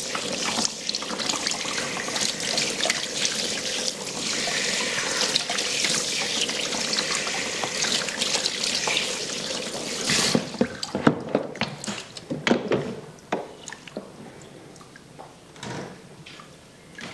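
Water spraying from a salon shampoo-basin hand shower while rinsing hair, a steady hiss that shuts off about ten seconds in. After it, scattered small clicks and knocks.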